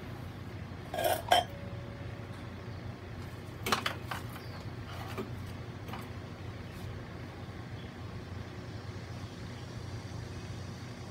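Two brief clatters of small hard objects being handled, one about a second in and one about four seconds in, followed by a few faint ticks, over a steady low hum.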